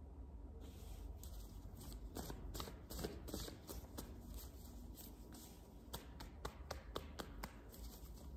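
Tarot cards shuffled by hand: a faint run of quick, irregular card clicks and flicks starting about half a second in, over a low steady hum.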